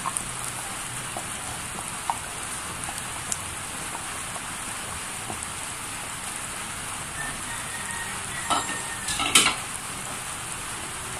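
Fish tinola broth at a rolling boil in a stainless steel wok, bubbling steadily. A spoon knocks against the pan a few times near the end.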